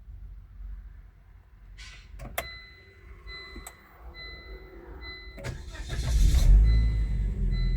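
Ignition clicks and a repeating electronic warning chime in a Volvo C70, then its five-cylinder engine cranks and starts about six seconds in and settles into a steady idle with the chime still beeping. This is the first start after the ABS module repair.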